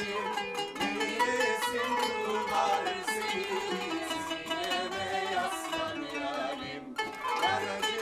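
Kanun, the Turkish plucked zither with three strings tuned together for each note, being played: a quick run of plucked notes, with a brief break near the end.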